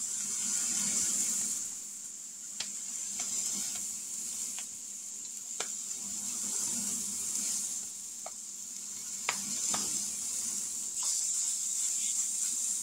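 Raw hamburger patties sizzling in a hot cast-iron skillet, a steady hiss. About eight sharp slaps are scattered through it as more ground beef is patted flat by hand.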